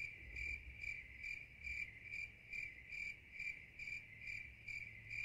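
Crickets-chirping sound effect: a steady high trill that swells in regular chirps about twice a second, then cuts off suddenly near the end.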